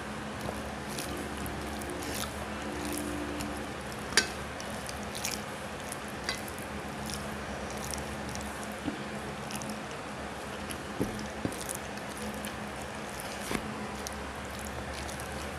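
Rice and boiled vegetables being squished and mixed by hand on a plate, picked up close by a clip-on microphone, with scattered sharp clicks, one louder about four seconds in, over a steady low hum.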